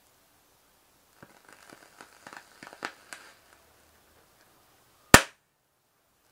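Power amplifier board overheating under power: a run of irregular crackles and faint sizzling from about a second in, then a single loud bang about five seconds in as a component on the board blows.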